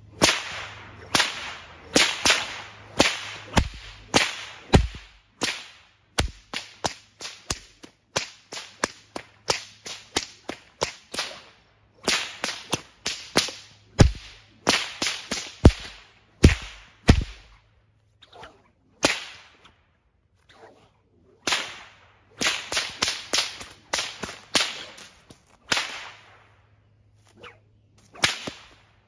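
Short buckskin Florida cow whip cracked over and over in fast runs of multiple cracking, about two sharp cracks a second, with a few short pauses between runs.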